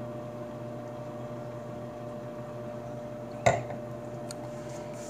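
A person quietly drinking stout from a stemmed glass over a steady electrical hum, with one short, sharp sound about three and a half seconds in.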